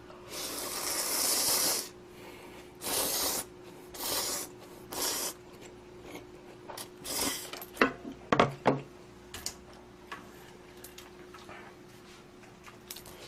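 Eating noises over a bowl of ramen: one long hissing slurp, then four shorter ones, followed by a few sharp clicks about eight seconds in.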